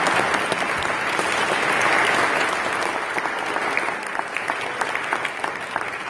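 A congregation applauding, many people clapping at once; the clapping is dense at first and thins to scattered claps over the last couple of seconds.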